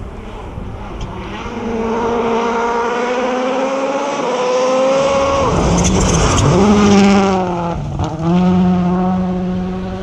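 A World Rally Car's 1.6-litre turbocharged four-cylinder engine at full stage pace on gravel: its note climbs for several seconds as it approaches, dips briefly and picks up again around six seconds as the driver lifts and gets back on the throttle, and is loudest as it passes about seven seconds in. There is a short break in the note from a gear change around eight seconds, then a steady pull away, with a hiss of tyres and gravel as it goes by.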